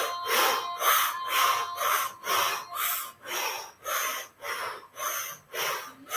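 A woman breathing fast and rhythmically in and out through the mouth, lips rounded in an 'O', in a steady pumping pattern of about two breath sounds a second, driven from the navel and diaphragm. This is a Kundalini yoga pranayama.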